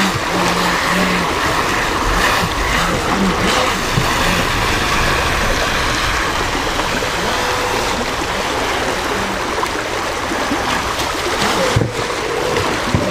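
Creek water rushing over a rocky riffle, with the whine of a small RC jet boat's electric motor and jet drive coming and going in it.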